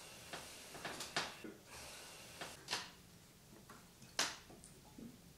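A few scattered soft knocks and taps, about a second apart, of small objects being handled on a table, over quiet room tone.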